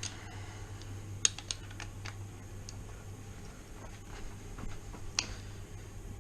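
Scattered sharp clicks and taps of hand tools working on a Rover V8's cylinder head bolts, irregular, with the loudest about a second in and again near the end, over a steady low hum.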